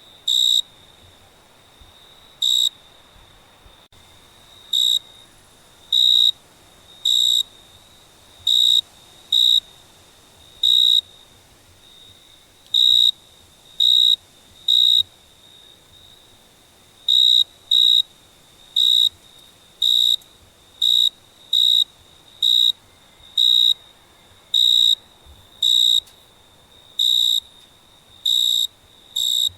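A cricket chirping: short, loud, high chirps about once a second at uneven intervals, over a faint steady trill of more crickets at the same pitch.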